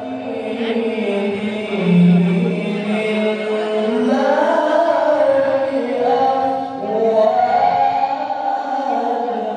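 A male qori reciting the Quran in the melodic tilawah style through a microphone and loudspeakers, holding long, ornamented notes that slide up and down in pitch.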